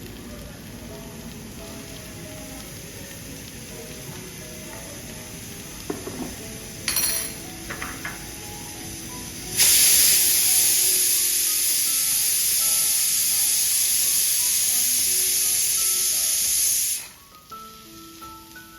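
Food sizzling loudly in a hot pan: a short burst of sizzling with a few knocks about seven seconds in, then a strong, steady sizzle that starts suddenly about ten seconds in, lasts some seven seconds and cuts off abruptly. Soft background music plays underneath.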